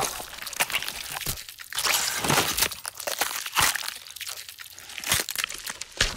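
A run of sudden crashes and crunching breaks, one after another at uneven intervals, like objects being smashed and debris scattering.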